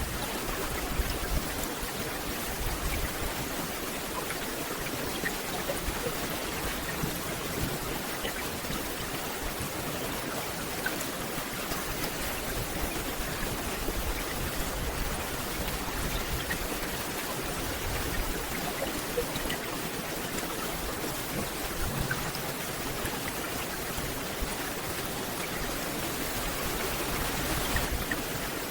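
Steady rain falling on a forest canopy, an even hiss of many small drops with scattered individual drip ticks.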